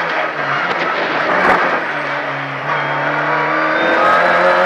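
Renault Clio RS rally car's naturally aspirated four-cylinder engine heard from inside the cabin, working through a corner: the revs settle lower, then climb steadily from about three seconds in as the car accelerates out.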